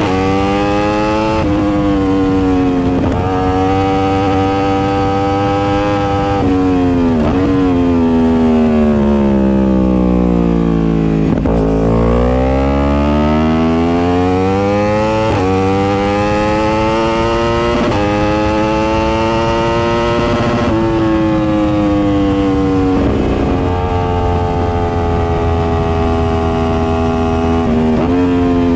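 Superbike engine pulling hard through the gears: the pitch climbs and drops sharply at each upshift, several times over. Around the middle it falls steadily for a few seconds as the bike slows, then climbs again through more shifts.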